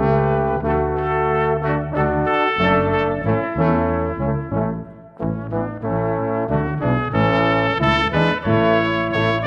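Brass ensemble of trumpet, French horn, trombone and tuba playing a CCB hymn in sustained chords, with a short breath between phrases about five seconds in.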